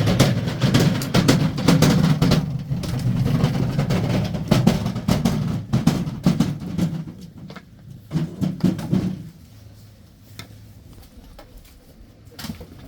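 Split firewood logs knocking and clattering against each other as they are carried and stacked, with many sharp wooden knocks over a heavy low rumble of handling. It dies down about nine seconds in, leaving only a few faint knocks.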